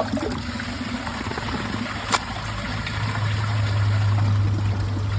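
Water trickling and dribbling in a toilet bowl that a rag has clogged, with one sharp click about two seconds in and a low steady hum that grows louder from about three seconds in.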